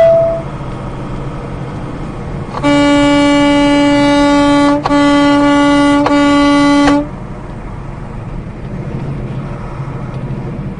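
Semi truck's horn blown three times in quick succession, a long blast and then two shorter ones, one steady pitch, over the steady road and engine noise of the cab.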